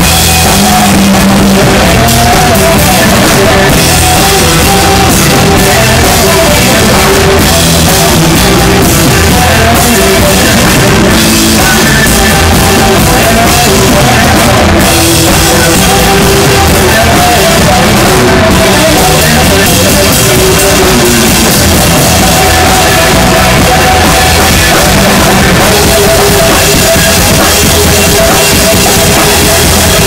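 Live blues-rock band playing loudly: a hollow-body electric guitar over electric bass and a drum kit, recorded close on a cell phone.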